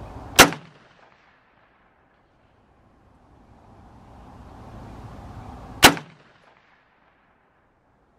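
Two rifle shots from an AK-pattern rifle, about five and a half seconds apart, each a sharp crack that dies away within half a second.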